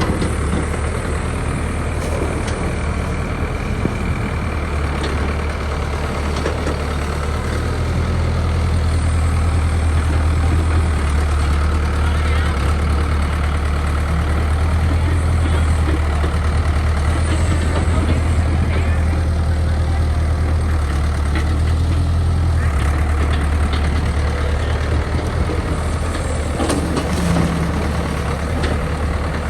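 Mini excavator's diesel engine running with a steady low drone. It grows louder about five seconds in as it works harder, and eases back a little over twenty seconds in.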